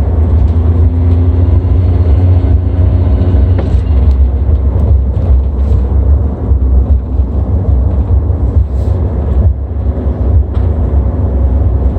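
Suzuki Jimny JA22's turbocharged K6A three-cylinder engine running with a heavy, steady low rumble; faint steady tones sit above it in the first few seconds. These are the odd sounds the owner suspects come from a failing RHB31 turbo, though he allows it could be something else.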